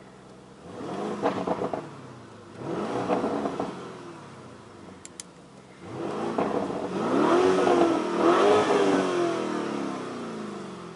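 Lamborghini Urus twin-turbo V8 revved while the car stands still: two short throttle blips, then a longer, louder rev with two peaks that rises and falls back toward idle.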